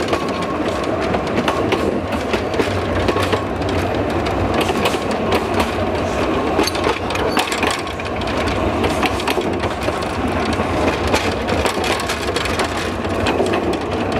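Narrow-gauge railway wagon rolling along the track: a steady rumble of wheels on rail, with the open wooden flatcar rattling and clicking throughout.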